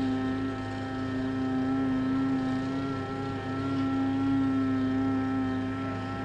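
A steady sustained drone holding one low pitch with a stack of overtones over a low hum, wavering slightly in pitch.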